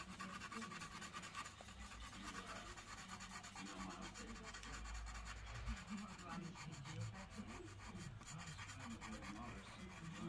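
Faint scratching of a Faber-Castell Pitt Pastel pencil being worked over the toothy surface of pastel paper.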